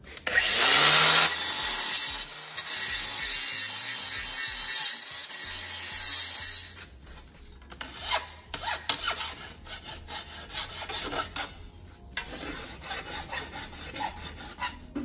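Cordless angle grinder grinding the edge of a steel sump baffle plate to trim it for fit, running for about six seconds with a short break. After that comes a hand file rasping along the plate's edge in irregular strokes.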